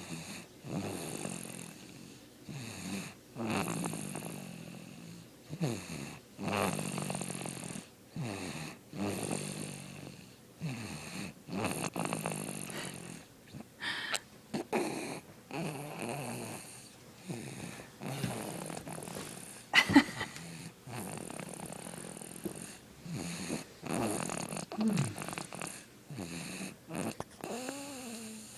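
Snoring in deep sleep: a steady run of snoring breaths, about one every second or two, some with a gliding pitch. About twenty seconds in there is a single sharp click, the loudest sound.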